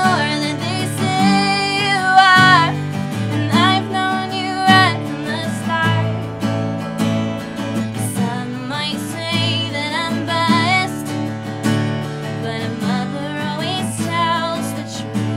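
A woman singing a slow song while strumming an acoustic guitar, holding some notes with vibrato.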